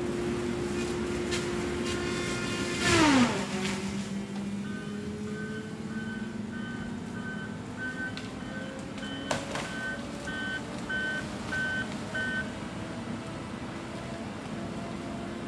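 Heavy logging machine working at the treeline: its engine runs steadily and then falls sharply in pitch about three seconds in. A backup alarm then beeps evenly for about eight seconds while the engine slowly climbs again, with one sharp crack partway through.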